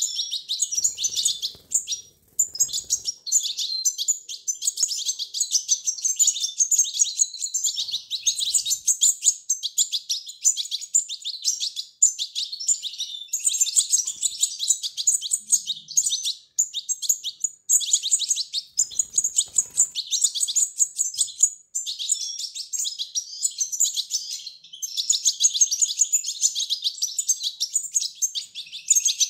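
Goldfinch fledglings giving rapid, nonstop high-pitched begging chirps while being hand-fed, broken by a few short pauses.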